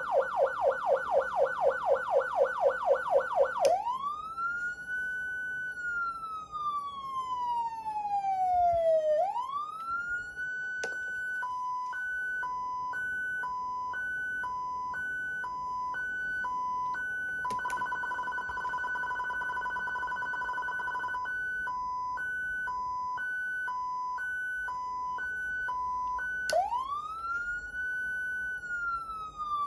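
Federal Signal Unitrol electronic siren amplifier stepping through its tones. It opens with a fast yelp warble, then a slow wail that rises and falls. It rises again into a high-low two-tone alternation, briefly holds as a steady double tone and alternates again, and near the end starts another slow wail.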